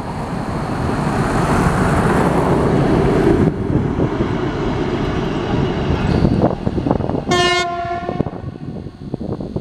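TEM18DM diesel shunting locomotive running light past at close range: engine and wheels on the rails loud as it goes by, then one short steady horn note lasting about a second as it moves away.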